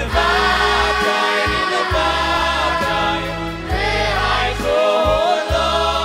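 Boys' choir singing in chorus, backed by instruments with sustained bass notes and a steady beat about once a second.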